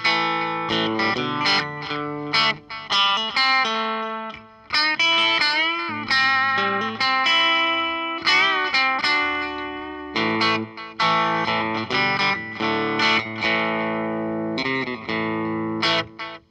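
Electric guitar, a Fender Telecaster through a Fender Blues Junior valve amp, playing a lead line of single notes with string bends, through the Coldcraft EchoVerberator pedal set to delay only at mid settings. The last notes fade out right at the end.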